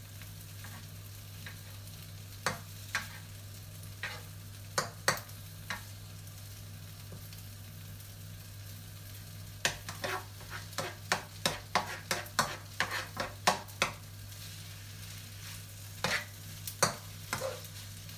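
Pad Thai noodles, shrimp and egg frying in a nonstick wok, turned with a spatula that clicks and scrapes against the pan. The strokes are scattered at first, come in a quick run from about ten to fourteen seconds in, and pick up again near the end. A steady low hum sits underneath; the shrimp are just starting to cook through.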